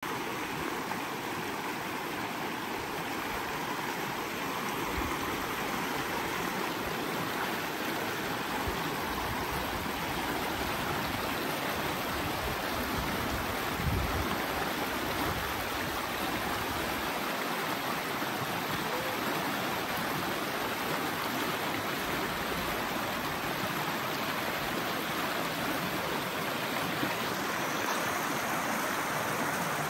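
Shallow mountain creek rushing steadily over rocks and small riffles. A brief low thump comes about halfway through.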